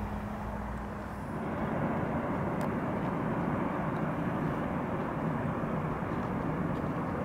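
Distant rumble of a long freight train running along the riverside railway, getting louder a little over a second in and then holding steady.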